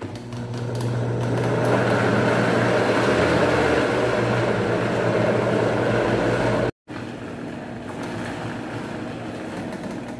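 Arno countertop blender's motor running steadily, grinding raw chicken into a heavy paste that strains it. About seven seconds in it breaks off for a moment, then runs on again more quietly.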